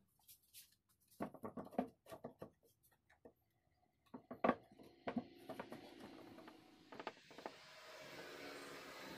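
Wooden knocks and taps as a grain-mosaic picture board is handled, set into a wooden frame and lifted out again on a wooden table, in several short clusters. Near the end a motor vehicle's engine noise grows louder in the background.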